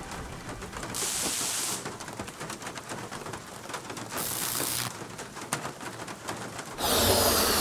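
Faint hiss and crackle with two brief swells of high noise, as an atmospheric intro. Loud fashwave (synthwave) music cuts in near the end.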